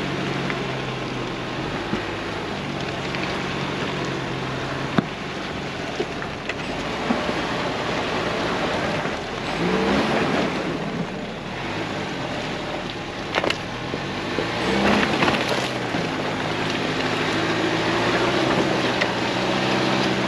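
Ford Bronco's engine running at low speed as the 4x4 crawls up a rutted dirt trail, revving up briefly twice, about ten and fifteen seconds in. A couple of sharp knocks sound along the way.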